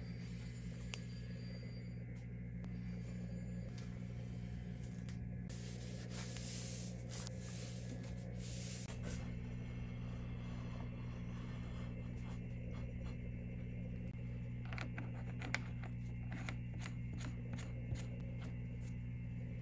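Soft background music with a steady low drone. Under it are faint metal rubbing and sliding sounds, and then a run of small metallic clicks in the last few seconds, as the horizontal milling arbor support and arbor nut are fitted by hand.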